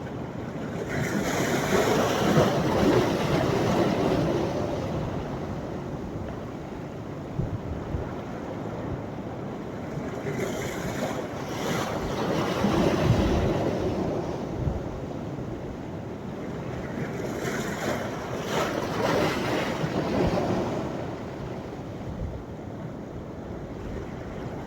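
Sea surf on a sandy beach: waves breaking and washing up the shore in three swells, roughly eight seconds apart.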